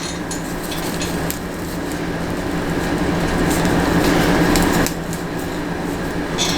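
Hair stiffened with hair gel crunching and crackling as the set curls are worked loose, over a steady hum. The crackle builds for a few seconds, then drops off abruptly about five seconds in.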